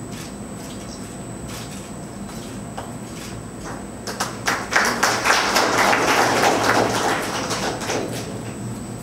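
Audience applauding: a few scattered claps at first, swelling into full applause about four seconds in and dying away near the end.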